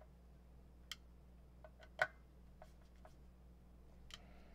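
Scattered light clicks and taps of small screws being handled and started by hand to fasten a subwoofer driver into its enclosure, the loudest about two seconds in, over a steady low hum.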